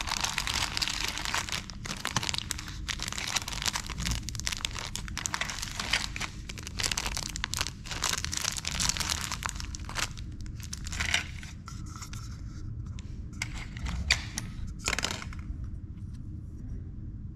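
Plastic and foil candy-mix sachets from a Kracie Popin' Cookin' kit crinkling as they are handled and lifted out of their plastic tray, densely for about the first ten seconds, then in scattered crackles.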